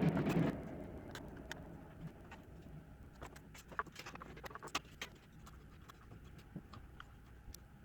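Handling of laptop parts during reassembly: a short rustling scrape at the start, then scattered small clicks and taps of plastic and metal pieces and tools.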